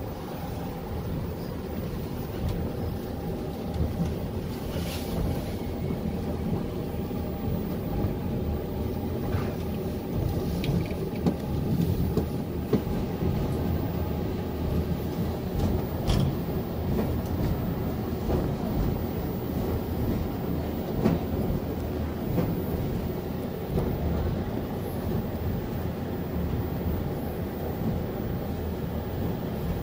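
Wolmi Sea Train running along its elevated track, heard from inside the car: a steady low rumble with a few faint clicks and knocks scattered through it.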